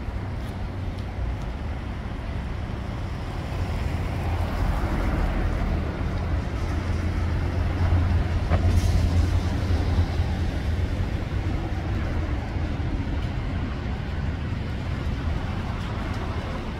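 Street traffic: a vehicle's low rumble builds over several seconds, is loudest about eight to ten seconds in, then slowly fades as it passes.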